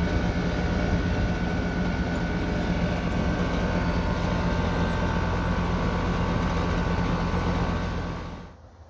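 Air-conditioner condenser unit running with a steady electrical hum and fan noise, shutting off about eight and a half seconds in. The compressor is drawing current but not pumping, a sign the compressor has failed.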